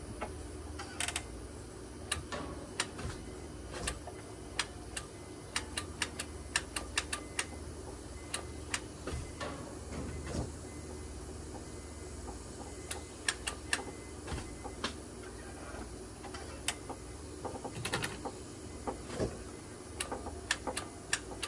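A 7th-generation Honda Accord engine running badly: a steady low hum with irregular sharp ticks and clicks scattered through it.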